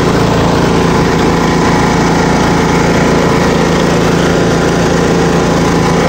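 Craftsman riding lawn mower's engine running steadily at a constant speed as the mower drives across the grass.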